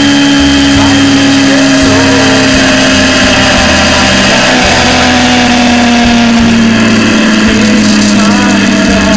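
Motorcycle engine running at road speed, heard from the bike itself over wind noise, its pitch falling slowly and steadily as the bike eases off.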